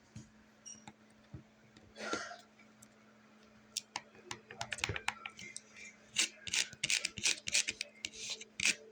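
Fidget board toys being clicked and tapped with the fingertips: a few scattered clicks, a brief rub about two seconds in, then a quick run of sharp clicks and taps from about four seconds in.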